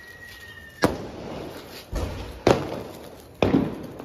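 Diwali firecrackers going off: several sharp, loud bangs at uneven gaps of about a second, each with a short crackling tail. A thin steady high whistle stops at the first bang.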